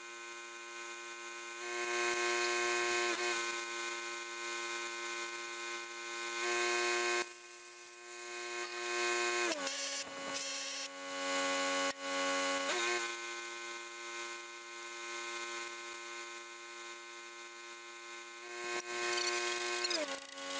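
Stick welding with a 1/8-inch 7018 rod at about 125 amps: a hissing arc over the steady multi-pitched hum of the welding machine. The hum steps down in pitch and back up a few times as the load changes, and there is a single sharp click about twelve seconds in.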